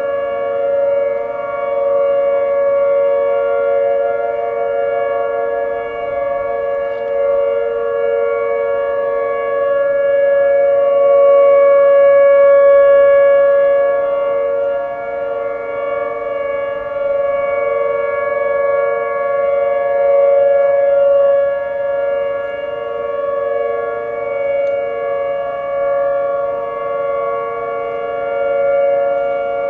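Several Whelen and Federal Signal outdoor warning sirens sounding the steady Alert tone together in a monthly test. Their tones overlap at different pitches, loudest around 500–600 Hz, and swell and fade slowly.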